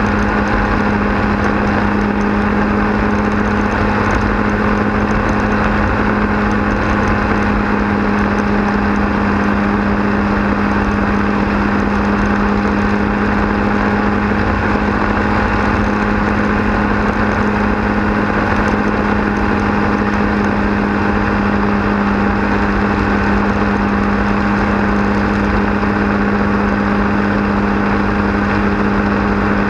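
Quicksilver Sport 2S ultralight's pusher engine and propeller running steadily at cruise power, a constant drone, with wind rushing and buffeting through the open cockpit.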